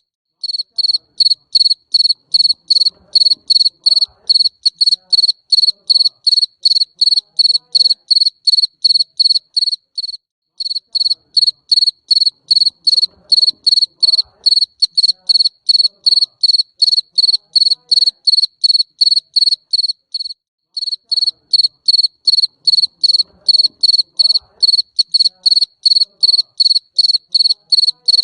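A cricket chirping loudly and steadily, about three high-pitched chirps a second. The chirping stops briefly twice, about every ten seconds.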